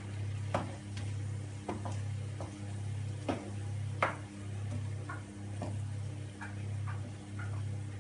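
Wooden spoon stirring vegetables and sauce in a wok, knocking and scraping against the pan in irregular clicks, under a low steady hum.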